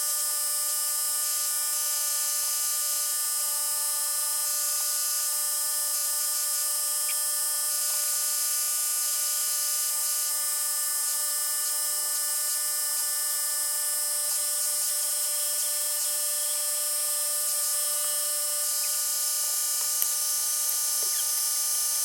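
Electric motor of air-conditioner cleaning equipment running steadily with a high-pitched whine, with a few faint clicks near the end.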